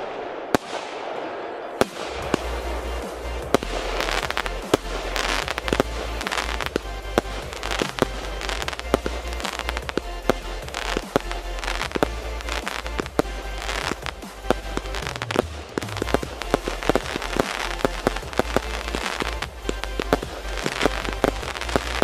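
Fireworks: a rapid run of aerial shots firing and bursting in the sky, sharp bangs several times a second with crackle in between.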